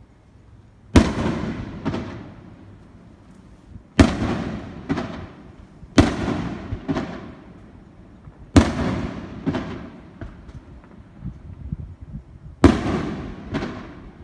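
Fireworks bursting overhead: five loud bangs at uneven intervals, each followed about a second later by a weaker bang, with a long rumbling tail dying away after each.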